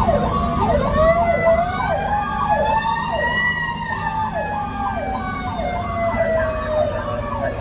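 Fire apparatus sirens on an emergency response: one siren in a slow wail that rises to a peak about halfway through and then falls, over a second siren sweeping down in pitch roughly every three-quarters of a second, with the truck's engine rumbling underneath.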